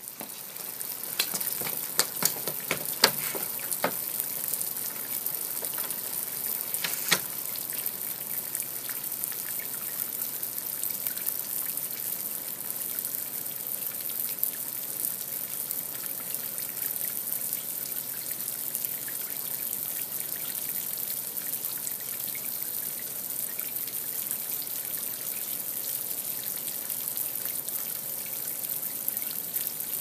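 Steady trickling, hissing noise like running water, with a few sharp clicks in the first several seconds.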